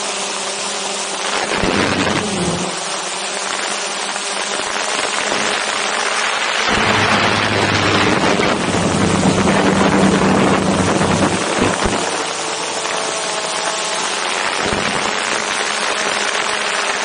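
DJI Mavic 2 Zoom quadcopter's motors and propellers whirring just above the microphone, with wind rushing over it: a steady hum with a few held tones that grows louder and fuller for a few seconds in the middle.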